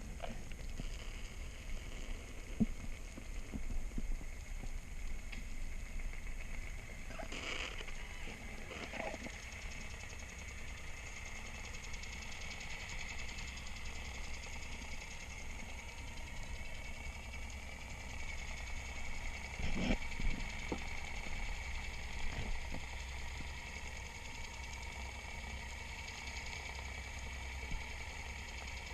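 A steady motor hum with a faint high whine above it, broken by a few knocks and clicks, the clearest about a third of the way in and again past the middle.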